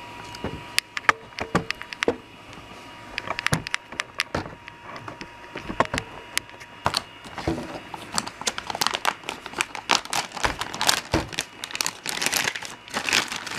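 Plastic packaging crinkling and rustling in the hands, with many irregular clicks and handling knocks, growing busier about halfway through, as a spool of 3D-printer filament is unwrapped.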